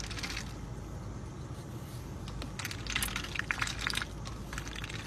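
Domestic duck dabbling its bill in a plastic cup of water: spells of rapid wet clicking and slurping, busiest about three to four seconds in, over a low steady hum.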